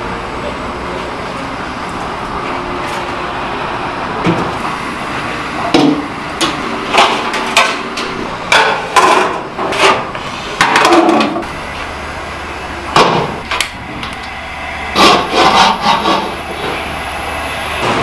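Large aluminium stock pots clanking and knocking against each other and the metal range as they are handled, a dozen or so irregular clatters over a steady kitchen hum.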